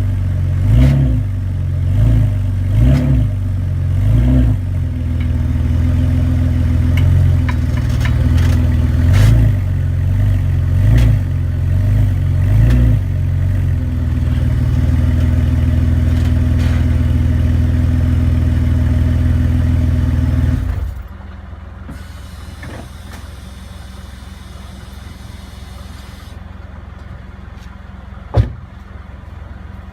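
A BMW E46 328i's straight-six engine and drivetrain run under load, the noise rising and falling about once a second, with repeated short knocks: the rear clunk that the owner traces to a cracked rear differential bushing. About two-thirds of the way through, the noise drops to a steady low idle hum, and one sharp knock comes near the end.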